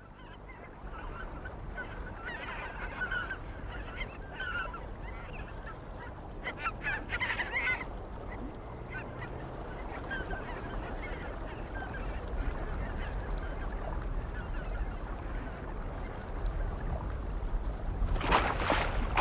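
Geese honking, a scatter of short calls and then a brief cluster of them, over steady outdoor ambience; a rush of water noise comes in near the end.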